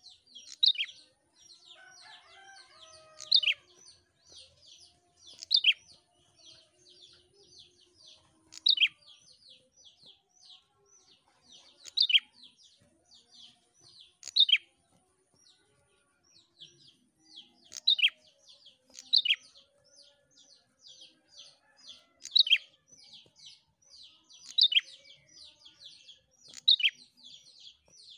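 Prenjak (prinia) singing: a fast, steady run of short, high chipping notes, with a louder note that drops in pitch about every two to three seconds.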